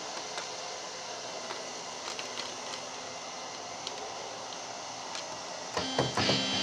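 Steady hiss with a few faint ticks between patches of a Korg X3 synthesizer, then keyboard notes start again near the end.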